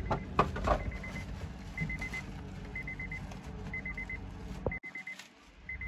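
Plastic bag crinkling and rustling as a new cabin air filter is handled and unwrapped, the loudest bursts in the first second. Behind it an electronic beep repeats about once a second, each time as a quick group of about four short pips.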